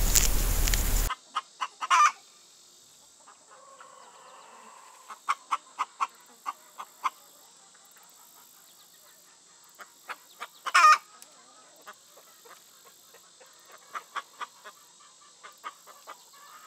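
A loud steady hiss cuts off about a second in. It is followed by scattered short clucking calls from a bird, some in quick runs of four or five, with two louder, longer calls about two seconds in and again near eleven seconds.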